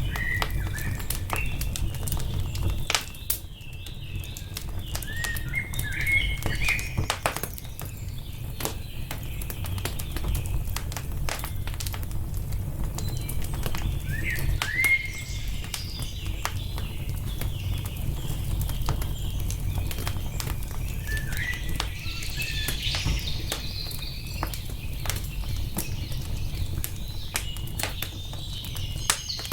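Wood fire crackling, with frequent sharp pops over a steady low rumble, while songbirds chirp in short phrases several times.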